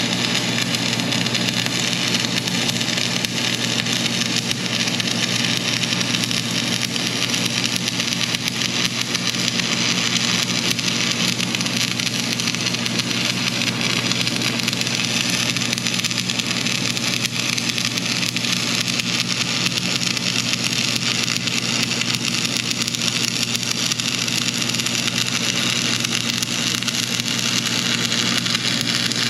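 Arc welding: the steady, dense crackle and sizzle of the welding arc, cutting off suddenly at the end as the arc is broken. A steady low hum runs underneath.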